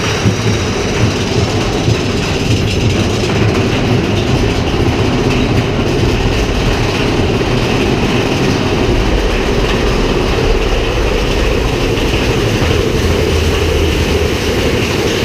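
Big Thunder Mountain Railroad mine-train roller coaster cars running along the track: a steady, loud rush of noise with a strong low rumble.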